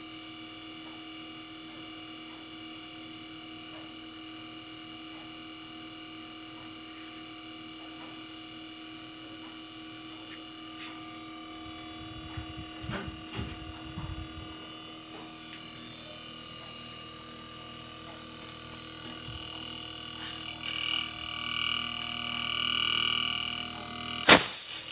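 The outdoor unit of a 2.5 hp LG split inverter air conditioner running, its compressor and fan motor working again after the inverter's IPM board was replaced: a steady hum with a high whine over it. A few low knocks come about halfway through, and there is one sharp click near the end.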